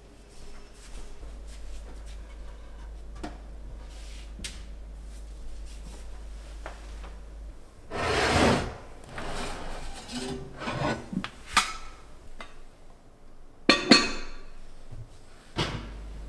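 Pots and pans being handled in a kitchen cabinet: a loud scrape about halfway through, then irregular clanks and sharp knocks as cookware and lids are moved and set down, the two loudest near the end. The first half holds only light ticks and handling noises.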